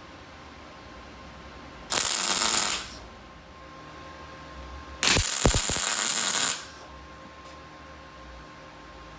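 MIG welder tacking steel pipe fittings: two short bursts of crackling arc hiss, the first just under a second long about two seconds in, the second about a second and a half long from about five seconds in.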